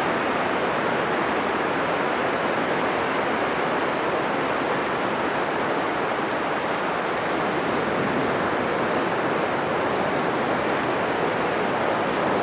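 Heavy ocean surf breaking on a sandy beach, a continuous dense wash with only slight swells in level and no single crash standing out.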